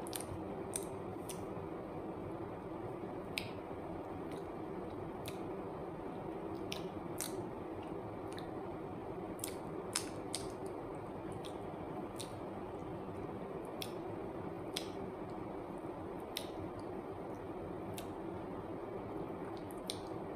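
Sporadic small sharp clicks and soft sticky squishes from a peeled banana being handled, over a steady room hiss.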